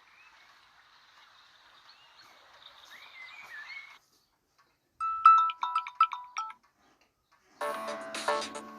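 Samsung Galaxy A30 ringtone and alarm tones played in turn. First a faint nature sound with chirping calls ends about four seconds in. After a short gap comes a brief run of bright, plinking notes, and near the end a fuller chime melody starts.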